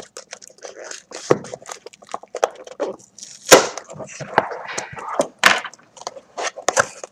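A cardboard shipping box being handled while its packing tape is picked at and torn: a string of sharp crackles, taps and scrapes, loudest about three and a half seconds in.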